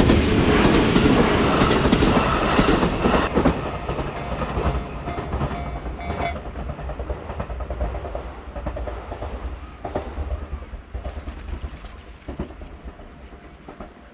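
An Iida Line train passes over the level crossing and runs away into the distance. It is loudest at first, then fades, with its wheels clicking over the rail joints. A steady ringing tone, typical of the crossing's warning bell, continues until about six seconds in and then stops.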